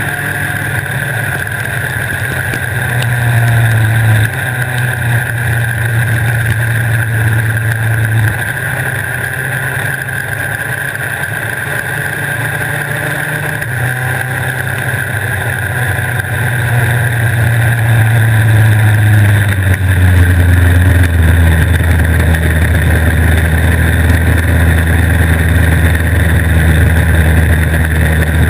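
Superkart's 250cc two-stroke engine at racing speed, heard on board on a wet track. Its note shifts to a new pitch every few seconds as the kart changes speed through corners and straights, over a steady hiss of wind and spray. The engine grows louder from about twenty seconds in.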